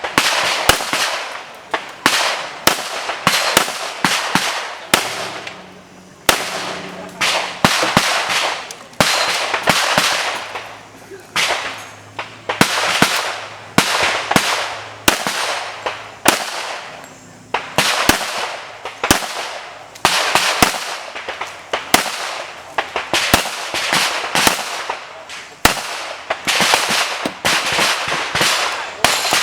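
Handgun shots fired in quick strings and pairs throughout, dozens of sharp cracks each trailed by a short echo, typical of a shooter running a practical pistol stage.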